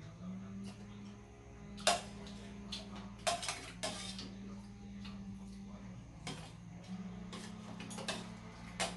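Metal chopsticks and spoons clinking against stainless-steel plates and an aluminium serving tray, in scattered sharp taps, several close together around the middle. A faint low hum comes and goes underneath.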